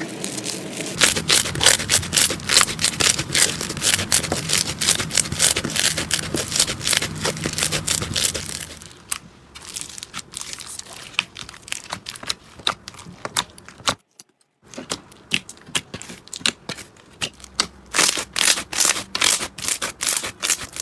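Slime being squished and pressed, making dense crackling and popping clicks; it breaks off briefly about two-thirds of the way through, and the clicks then come sparser.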